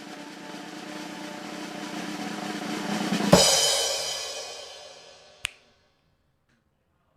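Drum roll building in loudness to a cymbal crash just over three seconds in, which rings on and fades away. A single sharp click comes near the end of the fade, then silence.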